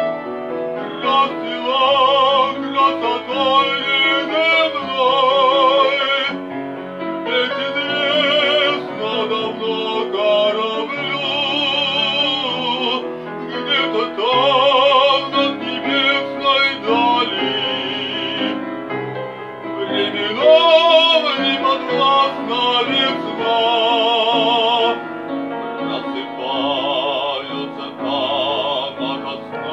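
A male classical voice singing an art song with a strong vibrato on held notes, accompanied by a grand piano.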